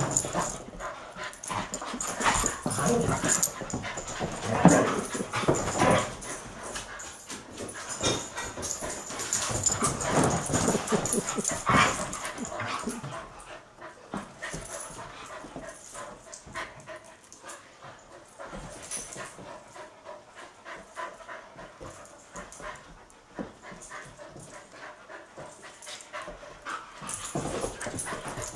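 Two dogs, a rough collie and a young Belgian Tervuren, play-wrestling: dog noises mixed with scuffling. It is busiest and loudest for about the first twelve seconds, then quieter.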